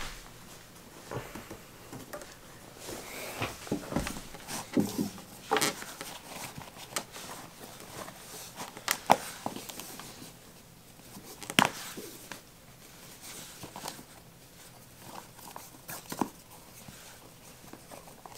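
Rustling, with scattered light clicks and knocks, as a new leather hiking boot is pulled on and its laces are drawn through the boot's metal lace hooks and tightened.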